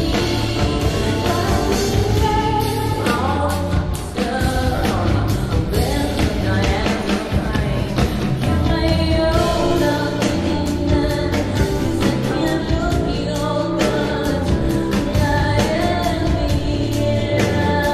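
Live rock song: a woman singing over a band with drums.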